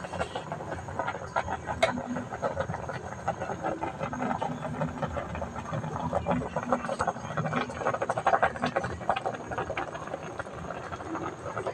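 Whole tilapia boiling hard in a metal pot: water bubbling at a rolling boil, a dense, irregular crackle of popping bubbles.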